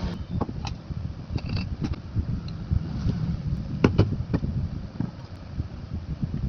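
Repaired ceiling fan running after its stator connections were remade, its airflow buffeting the microphone as a steady low rumble, with scattered light clicks and a couple of sharper ones about four seconds in.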